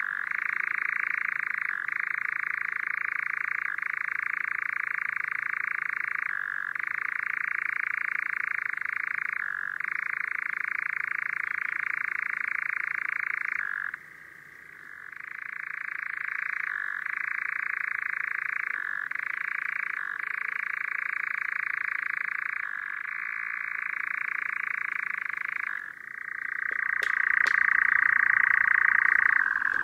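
European nightjar churring: a long, continuous mechanical reeling trill broken by brief catches every few seconds, pausing briefly about halfway and resuming, then growing louder near the end, with a few sharp clicks.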